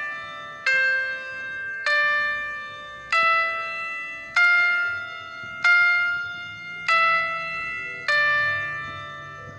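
Background music of slow, single bell-like notes, one struck about every second and a quarter, each ringing and fading before the next.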